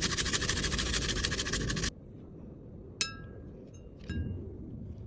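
A loud, dense crackling noise lasting about two seconds that cuts off abruptly, then two short ringing clinks of glass or metal about a second apart.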